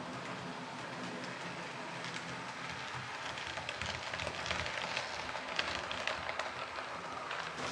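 H0-scale model train, a model SU46 diesel hauling passenger coaches, running on the layout's track over a steady low hum. From about three seconds in, the passing coaches' wheels clatter in a dense run of small clicks over the rail joints, loudest as they go by closest.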